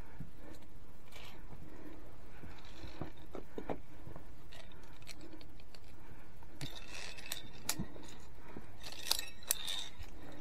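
Via ferrata climbing gear clinking and clicking, metal on the steel safety cable, among scuffs of hands on limestone, with a cluster of sharper metallic clinks over the last few seconds.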